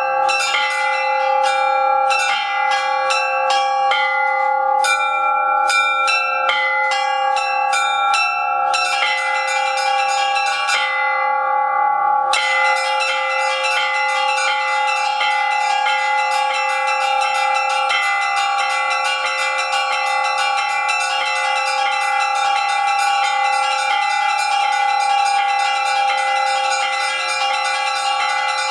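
Russian Orthodox church bell ringing (zvon) by a bell ringer: small high bells struck in quick rhythmic patterns over the ringing of the larger bells. About eleven seconds in the quick strikes break off for a moment, then the ringing resumes denser and keeps on.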